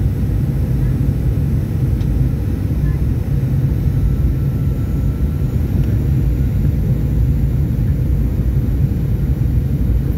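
Steady low rumble of engine and airflow noise inside the cabin of a Boeing 737-800 on final approach, heard from a window seat beside its CFM56 engine.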